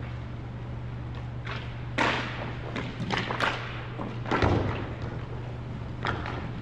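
Scattered thuds and knocks from game play, several in quick succession in the middle, over a steady low hum.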